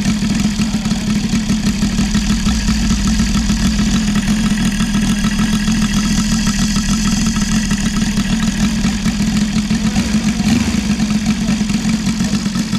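Saito FG-33R3 three-cylinder four-stroke radial petrol engine turning an 18x8 propeller on a model plane, running steadily at an even speed.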